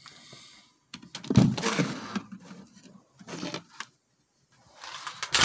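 An enclosure's mesh screen lid being moved and handled, giving three bursts of rattling and scraping.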